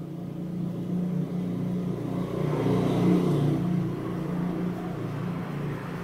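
A motor vehicle's engine passing by, growing louder to a peak about three seconds in and then fading.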